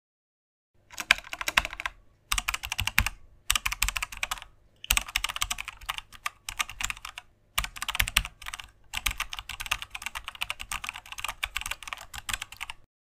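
Typing on a computer keyboard: quick runs of keystrokes in about seven bursts with short pauses between, stopping abruptly near the end.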